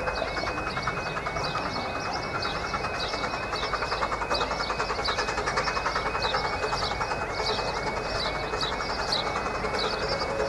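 'Doctor Syn', a one-third-size 4-6-2 Pacific steam locomotive on 15-inch gauge track, running with a fast, even rhythmic beat, along with repeated short high chirps.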